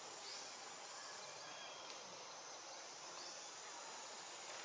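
Quiet forest ambience: an even, high hiss with a few faint, short rising chirps.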